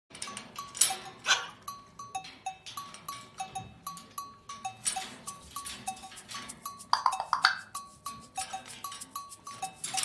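African grey parrot giving a few harsh calls, the loudest about a second in and around seven seconds. Under them runs a steady percussion beat of clicks and short pips, several a second.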